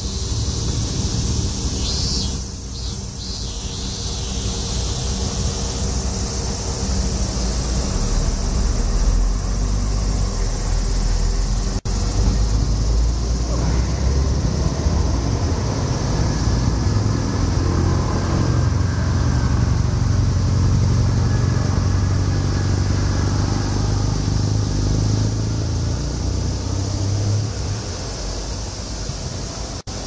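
Steady chorus of summer cicadas, an even high-pitched drone throughout, over a low rumble that grows louder about eight seconds in and eases off near the end.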